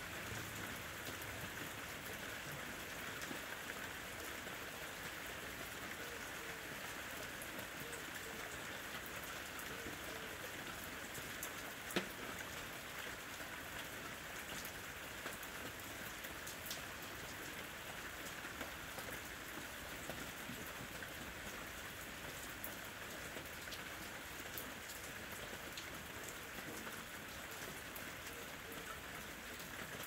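Steady rain falling, with scattered individual drops ticking through it and one sharper tap about twelve seconds in.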